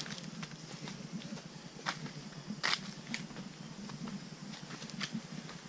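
Footsteps crunching on a mountain hiking trail: irregular, scattered crunches and clicks, the sharpest about two and three seconds in, over a steady low rumble.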